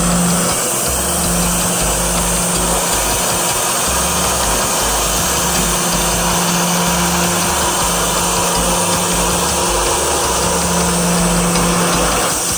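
Band sawmill running steadily and loudly: the saw head's motor and band blade give a constant mechanical hum, with a low tone that comes and goes every few seconds.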